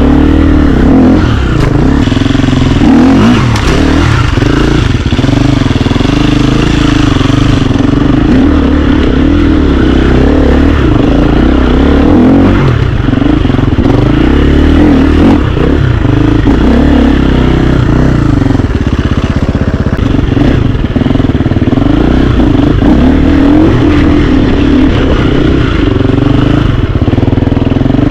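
KTM enduro dirt bike engine running under load on a trail ride, its pitch rising and falling constantly as the throttle is worked.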